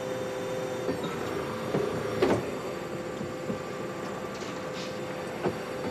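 Factory machinery running: a steady mechanical hum with a held tone, and a few clanks, the loudest a little over two seconds in.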